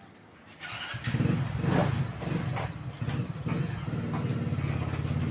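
A small external speaker box fed from an LED TV's audio output gives a rough, low growling buzz instead of proper sound, starting about a second in. The TV's own speakers test fine, so the noise points to a fault in the TV's audio amplifier section.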